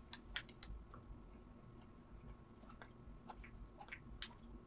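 A person chewing a bite of a soft, cake-like Liver King chocolate bar, quietly, with scattered small clicks and one sharper click about four seconds in.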